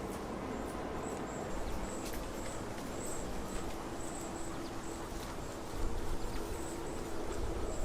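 Outdoor riverbank ambience: a short high chirp repeated about three times a second over a low rumble of wind on the microphone, with a faint steady hum; the rumble grows louder near the end.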